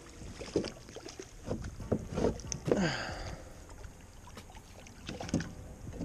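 Several separate knocks and bumps on a plastic fishing kayak as someone shifts in the seat and handles gear, with a short hissing rustle about three seconds in.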